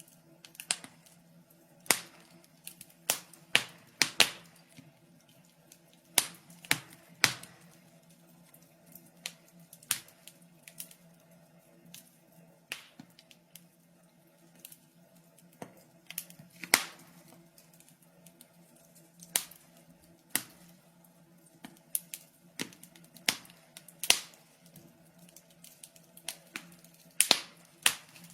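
Wood fire in a fireplace crackling, with irregular sharp pops and snaps a second or two apart over a faint low hum.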